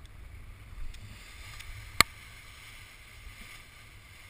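Wind buffeting the microphone, with the rustle of a paraglider wing's fabric as it is pulled up off the ground into the wind. A single sharp click about two seconds in is the loudest sound.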